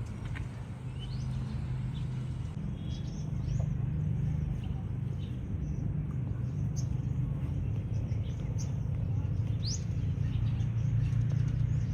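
A steady low rumble with a few short, high, rising bird chirps scattered through.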